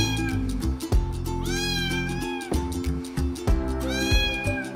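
A cat meowing three times in long, drawn-out meows that rise and fall, over background music with a steady beat.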